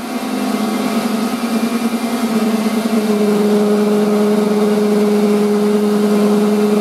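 Metal lathe turning a steel shaft, a loud steady drone with a second, higher tone joining about three seconds in. The cutting tool is chattering on the slightly out-of-balance workpiece, the kind of hammering that leaves a rough finish and quickly ruins the insert.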